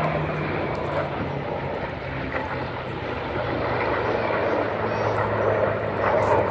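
A formation of jet fighters and a propeller warbird flying past together, a steady rushing drone of jet engines with a low engine hum underneath.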